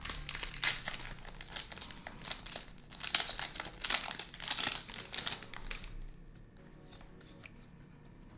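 Japanese Pokémon booster pack's foil wrapper crinkling as it is torn open, a dense crackle that stops about six seconds in. A few faint clicks follow.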